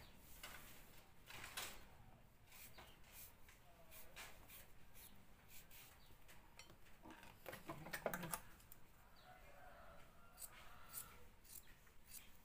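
Quiet room with sparse small clicks and rustles of hands handling cut fabric strips and scissors at a sewing table, with a slightly louder cluster of clicks about eight seconds in.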